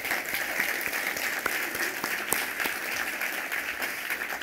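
Audience applauding steadily in a large room.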